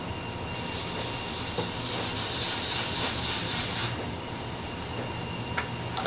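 Cloth rag rubbing across dye-wet flame maple, a steady scrubbing hiss from about half a second in until about four seconds in, as the wet leather dye is wiped back to fade the colour.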